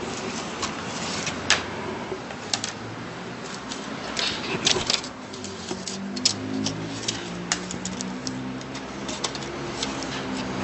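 Scattered, irregular light clicks and taps over steady background noise.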